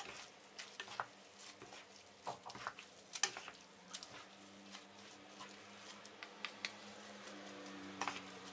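Two wooden spoons tossing spaghetti in a creamy sauce in a nonstick frying pan: faint, scattered clicks of the spoons against the pan and soft wet squishing of the sauce, over a faint steady low hum.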